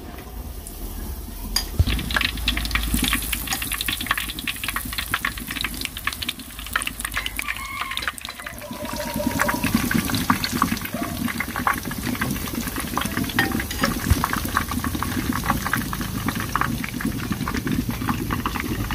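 Battered eggplant frying in hot oil: a steady sizzle full of dense, irregular crackling pops. It starts about two seconds in and gets louder from about nine seconds in.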